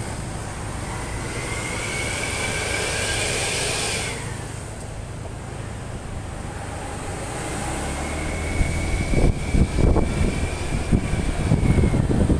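Road vehicle noise with a faint steady high whine that stops abruptly about four seconds in. About two-thirds through, a heavier low rumble sets in with gusty buffeting, as of a large vehicle close by or wind on the microphone.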